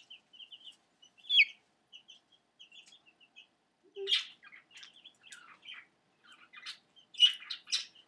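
Young chicks peeping: a run of quick, soft, high peeps, one louder falling peep about a second and a half in, then a looser string of scratchier chirps in the second half.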